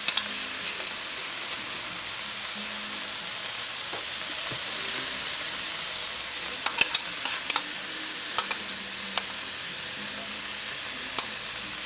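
Onion and tomato masala sizzling steadily in hot oil in a frying pan, with a few sharp clicks about two-thirds of the way in as a wooden spoon scrapes chili paste from a bowl into the pan.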